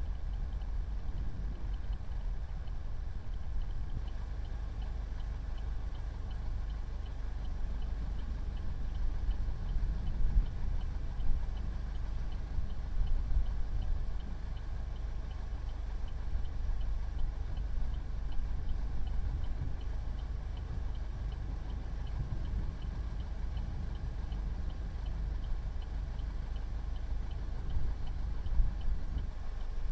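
Car driving at speed, a steady low road and engine rumble heard from inside the cabin, with a faint, regular ticking over it.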